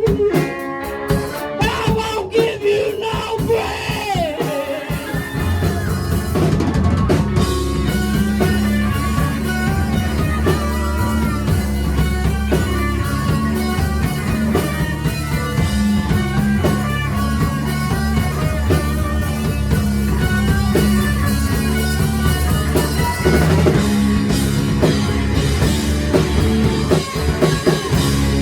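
Four-piece rock band playing live: drum kit and amplified instruments. A sparser opening gives way about five seconds in to the full band with heavy bass.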